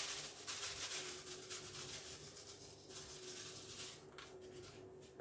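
Granulated sugar poured in a stream from a small bowl into a bowl of flour: a soft, faint hiss that thins out near the end.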